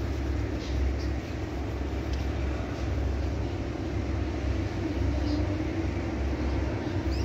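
Steady low background rumble, like a motor or distant traffic, with a few faint, short high-pitched squeaks about a second in and again around five seconds.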